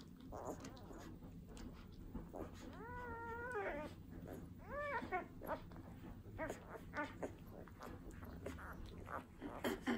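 Newborn Great Dane puppies nursing, with small wet smacking clicks throughout. A puppy gives two high squeaky cries, a held one about three seconds in and a short rising-and-falling one about a second later.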